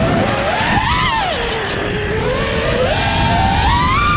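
FPV freestyle quadcopter's brushless motors whining, the pitch sweeping with the throttle: up about a second in, down low through the middle, then climbing steadily toward the end. Wind rushes over the quad's onboard GoPro microphone.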